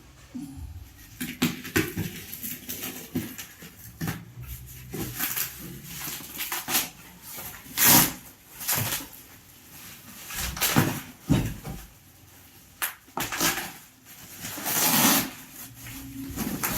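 Irregular handling noises: a string of knocks, scrapes and rustles, the loudest about eight seconds in and a longer scrape near the end, as of the heater's packaging being handled and opened.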